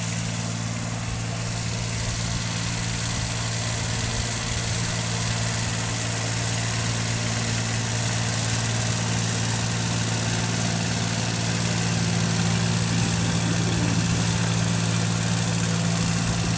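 An engine running steadily at idle, with a constant low hum and a gradual slight rise in loudness.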